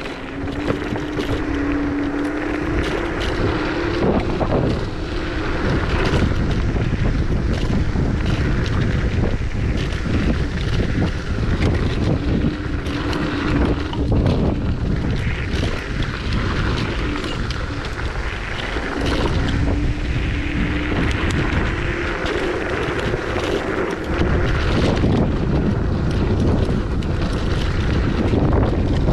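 Wind rushing over the microphone and tyre rumble from a Zero 10X electric scooter riding fast along a gravel path. A steady motor whine comes and goes several times, with rattling knocks over bumps throughout.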